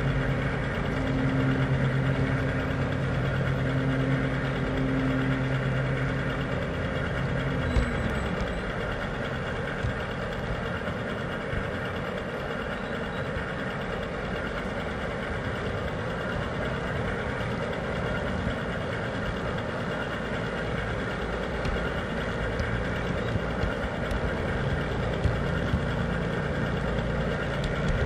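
G scale model container train running along outdoor garden track: a steady mechanical rumble. A low drone falls away about eight seconds in, leaving a rougher, even rumble with small clicks.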